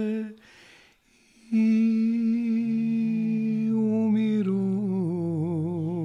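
A man singing a slow, unaccompanied Bosnian sevdalinka. A held note ends just after the start, and after a pause of about a second he holds a long note with wavering vibrato. A second, lower voice hums along under it.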